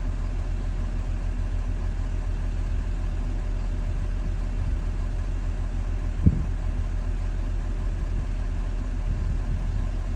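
Diesel engine of a JLG 1255 telehandler running steadily with a low, rapidly pulsing drone, with one short click about six seconds in.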